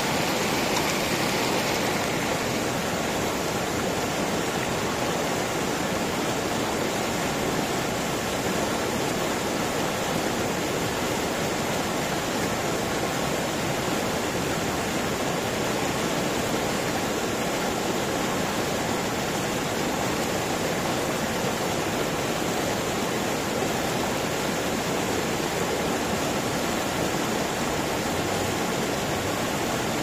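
Fast, shallow river rapids rushing and churning over rocks: a steady, unbroken whitewater noise at an even level.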